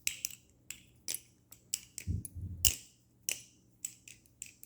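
Balisong (butterfly knife) being flipped: a string of sharp metal clicks and clacks at an irregular pace as the handles swing and strike, about a dozen in a few seconds.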